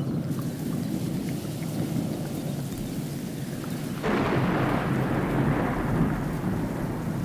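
Thunderstorm: steady rain with a low rumble, then a sudden clap of thunder about four seconds in that rolls on and slowly fades.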